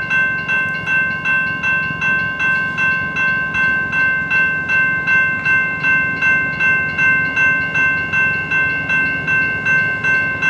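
Bell ringing steadily and evenly, a little under three strikes a second, as a passenger train arrives at a station, with the train's low running underneath.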